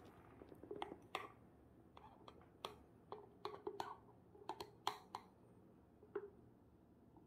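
Faint, irregular small clicks and ticks, about fifteen of them, mostly in the first five seconds with one more near the end, over quiet room tone.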